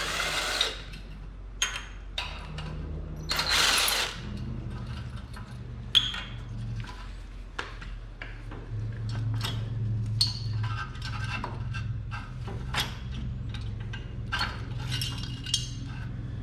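Metal clinks and knocks of hand tools and engine parts being handled on a Kohler Courage 19 engine with its cylinder head off, with two short louder scraping bursts, one at the start and one about three and a half seconds in, over a steady low hum.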